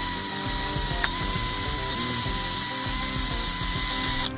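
DeWalt cordless drill spinning a wire wheel brush against a rusty pump motor bracket, scrubbing rust off the seal face: a steady high motor whine over a gritty scrubbing hiss. The drill cuts out suddenly near the end.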